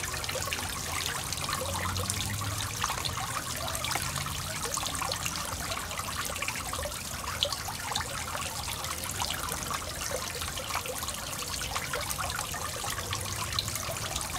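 Small pond fountain spraying water that falls back onto the pond surface: a steady splashing trickle.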